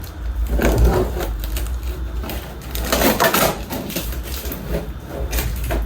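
Cardboard box and packaging being opened and handled by hand: irregular rustling and scraping, strongest about half a second in and again around three seconds in.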